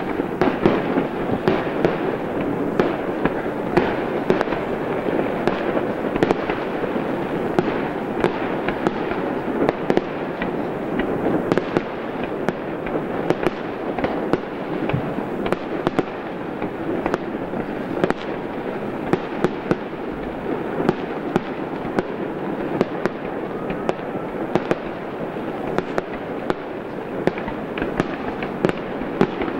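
Aerial fireworks going off in quick succession: a steady, dense crackle with many sharp pops and bangs throughout.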